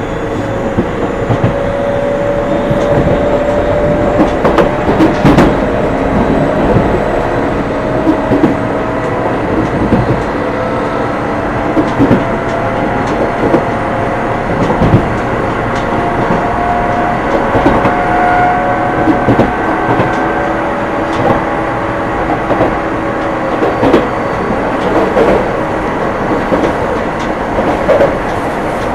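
Odakyu 9000 series electric train running, heard from inside the carriage: a motor whine that rises slowly in pitch over the first twenty seconds or so as the train gathers speed, with wheels clicking over rail joints.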